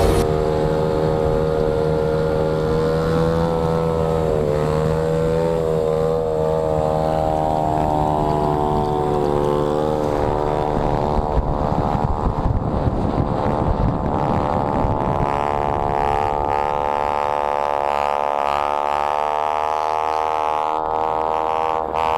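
Honda Z50R pit bike's small single-cylinder four-stroke engine held at high revs, its pitch dipping and rising a few times, with the rush of wind and road noise from a moving vehicle growing in the second half.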